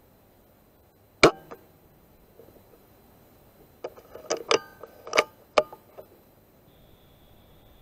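Weihrauch HW100 PCP air rifle firing once about a second in, a single sharp crack. From about four to six seconds in comes a quick run of metallic clicks as the side lever is cycled to load the next pellet.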